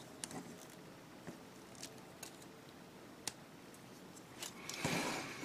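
Faint, scattered clicks of hard plastic as the parts of a small plastic Gundam model figure are handled and pressed into place, with a brief louder rustle near the end.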